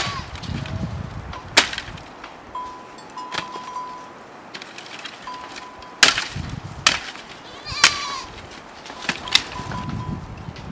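Dry branches and twigs snapping as brushwood is broken and pulled from a pile, about eight sharp cracks spread through, with rustling of dry brush between them.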